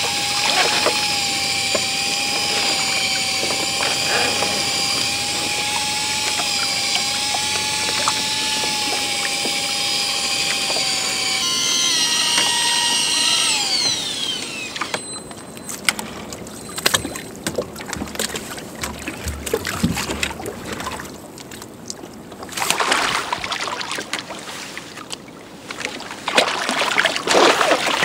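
Torqeedo Ultralight 403 electric outboard on a kayak running with a steady whine that wavers slightly in pitch; about eleven seconds in it drops a step, then the whine slides down and stops. After it, scattered clicks and splashy noise, louder near the end.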